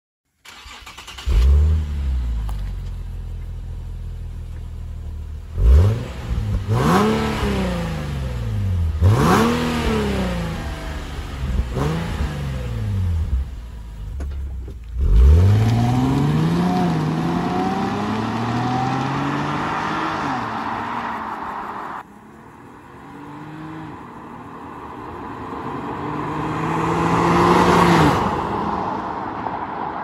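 Nissan 370Z's 3.7-litre V6 on its stock exhaust, starting up and idling, then revved in four quick blips that each drop back to idle. A bigger rev follows and falls away slowly. After an abrupt drop, the engine note climbs and then falls again near the end.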